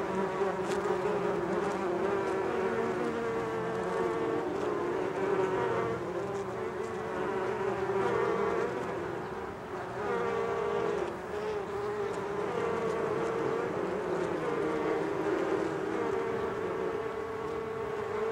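Steady buzzing of a swarm of bees, several pitches droning together and wavering slightly.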